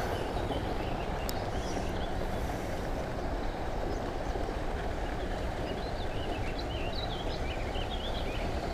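Steady low rumble of background noise, with small birds chirping in short high calls from about three seconds in.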